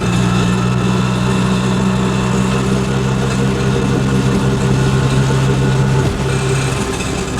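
Auto rickshaw engine running steadily at idle, with a brief dip in its note about six seconds in.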